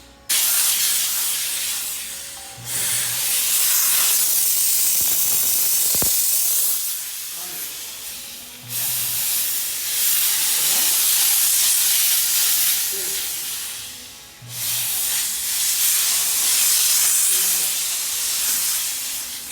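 Dry vapor steam cleaner nozzle jetting steam with a loud hiss, in four long blasts that each start abruptly and taper off.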